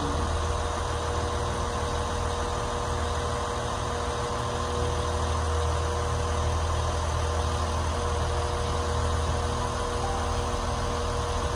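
Class 196 diesel multiple unit standing at the platform with its diesel engines idling: a steady low drone with a thin steady tone above it.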